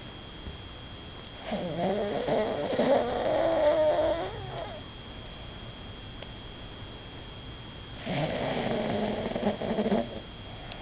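Snoring: two long snores, each lasting about three seconds, the first starting about a second and a half in and the second near the end, with quieter breathing between them.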